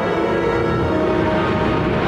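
Orchestra playing a contemporary piece: many held notes sounding together over a low rumble, with a hiss-like wash building in the high range near the end.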